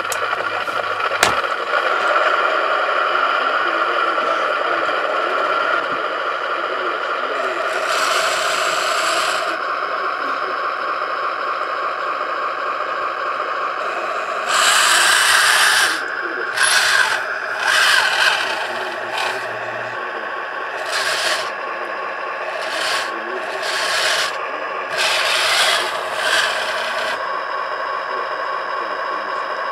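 1/25 scale radio-control Jagdpanther tank with Heng Long electronics: a steady mechanical running sound with a fixed pitch, broken by louder bursts of motor whir a few times as the model drives.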